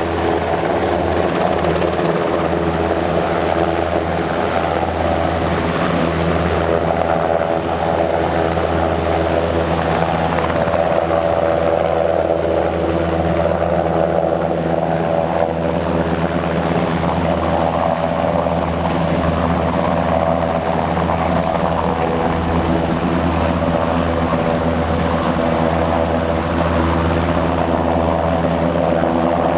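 NH90 helicopter hovering: the steady beat of its main and tail rotors over the whine of its twin turbines, holding a hover while carrying a vehicle slung underneath on a cable.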